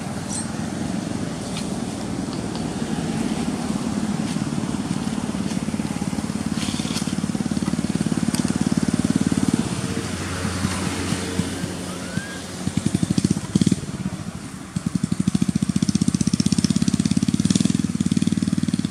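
A small engine running steadily close by, with a fast, even beat that comes through most clearly in the second half.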